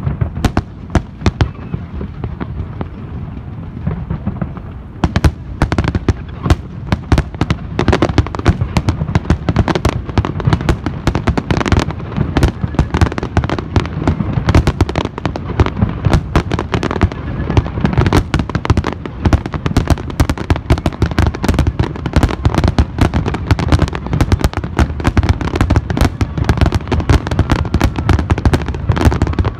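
Aerial fireworks display: separate bangs of shell bursts, which turn about five seconds in into a dense, unbroken barrage of rapid bangs and crackling.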